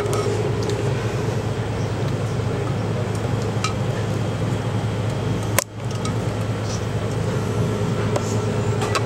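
A steady low hum with hiss. It is broken by one sharp click about five and a half seconds in, after which the sound drops out for a moment.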